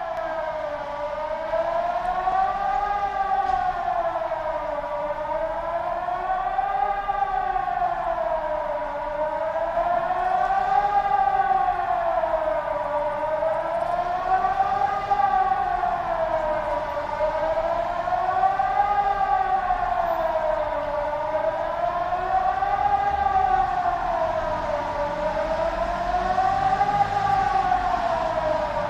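Swiss civil-defence siren sounding the general alarm signal for the annual nationwide test: one continuous wail whose pitch rises and falls about every four seconds.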